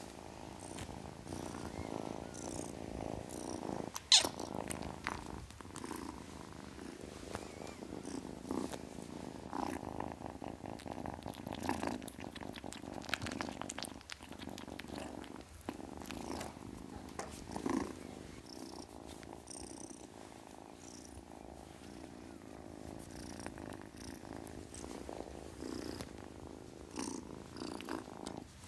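Kitten purring steadily and continuously. A sharp click about four seconds in is the loudest sound, with a few fainter knocks later.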